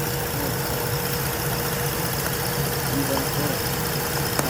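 Car engine idling steadily, a low even rumble with a steady hum over it and a hiss; a click just before the end, then the sound cuts down abruptly.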